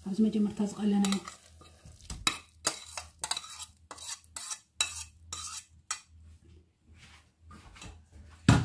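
Wooden spoon stirring and scraping around a non-stick frying pan of chopped vegetables frying in oil, in a run of short scrapes about two a second, with a light sizzle under it.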